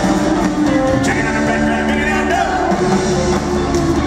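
A live band playing, with electric guitars, bass and drums under singing, heard loud from the audience.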